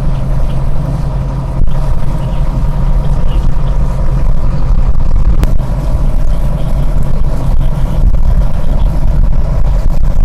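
Tour boat's engine running with a steady low drone, loud on the on-board microphone, a little louder from about two seconds in.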